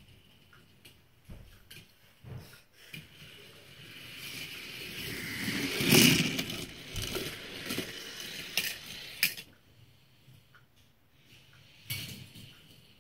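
A die-cast Hot Wheels car rolling down orange plastic track, its rattle growing as it nears and loudest as it passes about six seconds in, then rattling on for a few seconds before a sharp click. A few light clicks and knocks come before and after.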